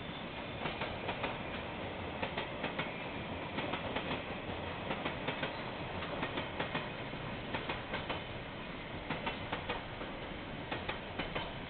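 Container freight train rolling past, its wagon wheels clacking over the rail joints in repeated little groups of clicks over a steady rumble.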